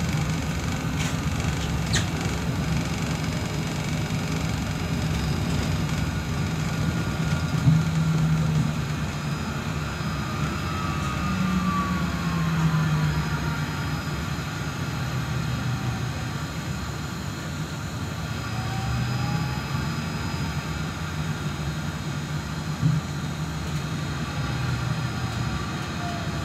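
Cabin ride noise of a Solaris Trolino 12 trolleybus under way, a steady low rumble and hum. Over it the electric traction drive whines; the whine glides down in pitch as the bus slows, rises briefly as it pulls away, and falls again near the end. A few short knocks come through the body.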